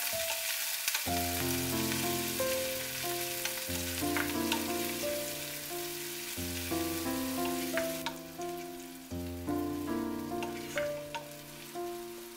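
Onions and chives sizzling in hot oil in a pot while being stirred with a wooden spoon, which knocks against the pan a few times. The sizzle softens about eight seconds in. Gentle background music with a steady bass plays throughout.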